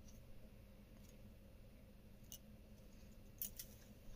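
Near silence with a few faint, scattered clicks from a small metal earring being handled and fastened onto the nose with the fingers.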